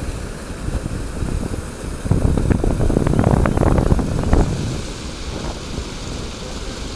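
Wind buffeting the microphone: a low, rough rumble that swells into a stronger gust about two seconds in and eases off about two seconds later.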